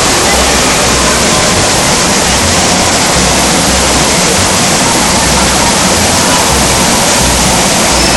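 Loud, steady rush of water, like a waterfall or a large water feature pouring, with an uneven low rumble underneath.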